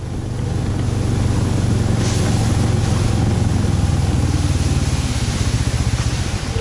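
A motor vehicle's engine running loud and close. It builds over the first second, then runs steadily.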